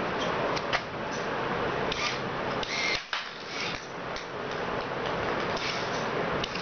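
Homemade motor-driven ping-pong ball crossbow mechanism running: a steady mechanical whir with a handful of sharp, irregular clicks as the mechanism cycles.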